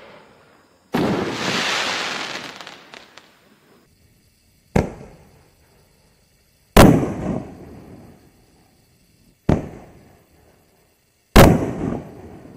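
5-inch canister firework shells going off. About a second in, a shell bursts with a long fading tail. Then two more shells follow, each a sharp launch thump from the mortar and, about two seconds later, a louder bang as the shell breaks overhead.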